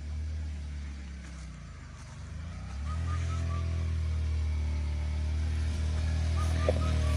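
Motorcycle engine running as a trail bike rides up a dirt track toward the listener, dipping briefly and then growing louder from about three seconds in as it approaches.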